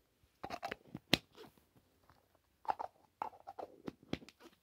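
Hands opening and handling a plastic Mini Brands capsule ball and its packaging: irregular crinkles and light clicks, with one sharp click about a second in.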